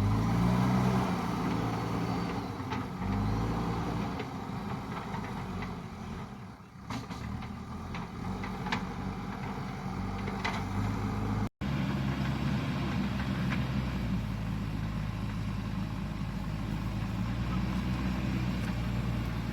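JCB backhoe loader's diesel engine running under working load, its speed rising and falling in the first few seconds and then running steadily, with a few faint clicks.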